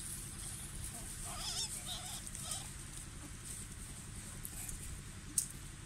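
A few short wavering animal squeaks, about a second and two seconds in, over a low steady rumble.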